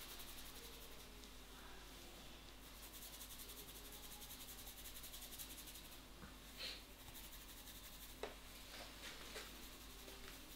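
Faint rubbing of a barber's hands massaging a head, with a couple of soft clicks in the second half.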